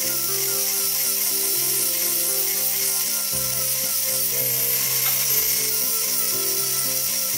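Background music with a changing melody, laid over the steady high-pitched hiss of a rotary tool's small sanding disc grinding down the edges of wooden model-boat frames.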